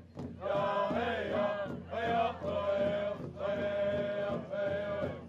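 Men singing a Native American pow wow song: chanted phrases about a second long with short breaks between them.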